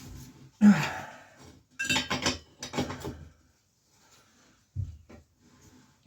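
Metal hand tools and bicycle bearing parts clanking and clinking as a seized cup is worked loose, with a loud knock about a second in, then a few quick runs of clinks and a single thump near the end.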